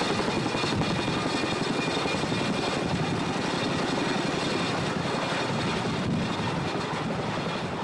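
CH-47 Chinook tandem-rotor helicopter hovering low overhead with a sling load: rapid rotor blade chop over a steady rush of rotor wash and turbine noise, easing off slightly near the end.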